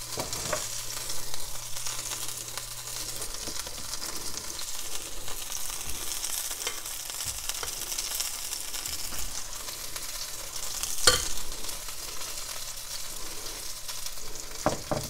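Oil sizzling and crackling steadily around breaded potato patties shallow-frying in a stainless steel skillet, with one louder sharp click about eleven seconds in.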